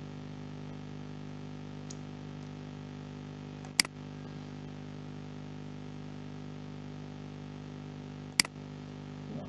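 Two sharp computer mouse clicks, one about four seconds in and one about four and a half seconds later, over a steady low electrical hum.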